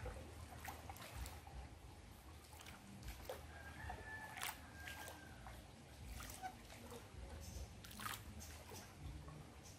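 Faint water sloshing and trickling around a small boat, with scattered light knocks and two brief, thin high notes about four to five seconds in.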